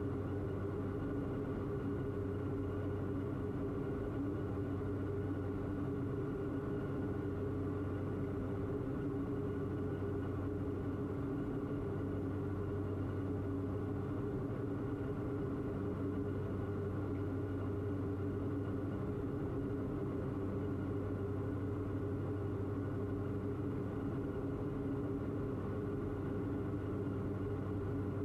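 Steady drone of a Diamond DA42's twin engines and propellers in flight, heard from inside the cockpit.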